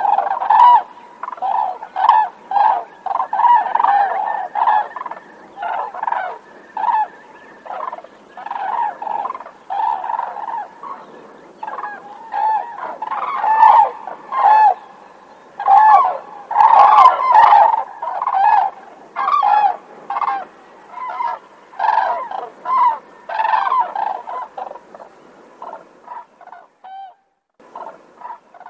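Sandhill cranes calling: a long run of short, loud calls, several birds overlapping. The calls thin out and stop near the end.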